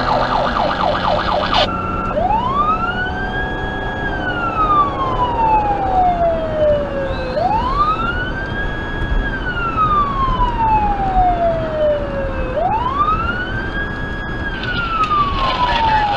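Federal Signal Touchmaster Delta electronic siren on a responding vehicle, heard from inside the cab. It runs a fast yelp, switches near two seconds in to a slow wail that rises, holds and falls about every five seconds, and a second set of steady horn-like tones joins near the end.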